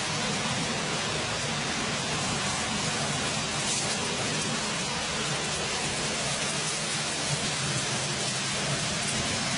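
Pork on a stick sizzling over an open campfire, a steady hiss of fat cooking with faint crackles from the fire.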